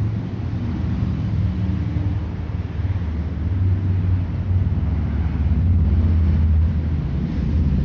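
Street traffic: passing car engines make a low, steady rumble that swells in the middle and later part.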